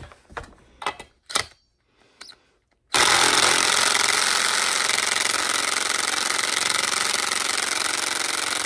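Impact driver hammering for about six seconds on the drive clutch of a Stihl MS 290 Farm Boss chainsaw, starting about three seconds in, after a few light clicks of tool handling. The clutch does not come loose under it.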